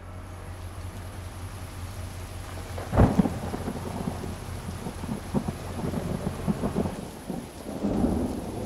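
Thunderstorm: steady rain with a low rumble of thunder, a sharp thunderclap about three seconds in, and another swell of thunder near the end.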